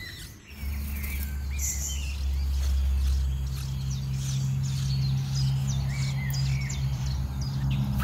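Many short, high bird chirps, scattered throughout, over steady low droning tones that start about half a second in and grow fuller about three seconds in.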